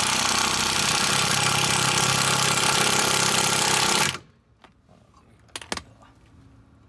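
Corded electric impact wrench running for about four seconds, hammering a lug nut down over a stud-installer tool to pull a new wheel stud into the hub, then stopping abruptly. A brief knock follows about a second and a half later.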